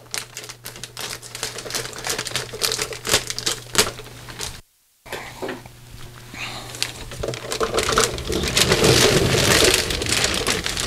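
Clear plastic packaging bag crinkling and crackling as it is snipped with scissors and pulled off a large toy car. The crackling stops briefly a little before halfway, then grows denser and louder toward the end as the bag is peeled away.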